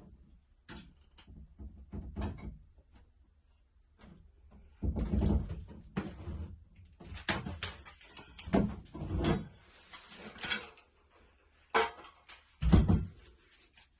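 Irregular knocks, taps and scrapes of tools and parts being handled against a wall while the mounting holes are measured and marked, with a heavier thump near the end.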